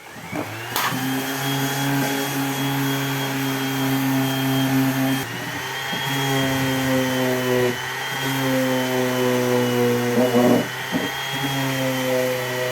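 An electric power tool's motor starts with a rising whine and then runs steadily. Its pitch wavers and dips briefly about three times.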